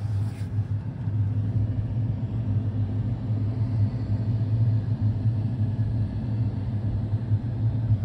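John Deere S790 combine running, a steady low drone heard from inside the cab.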